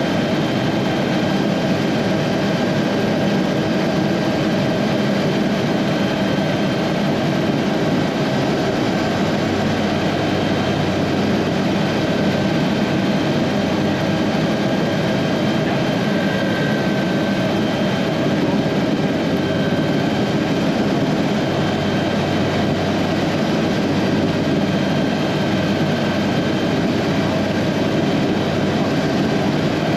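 Aérospatiale SA315B Lama helicopter in cruise flight, heard from inside the cockpit: its Turbomeca Artouste turboshaft and rotor running steadily, a dense even roar with a thin steady turbine whine on top.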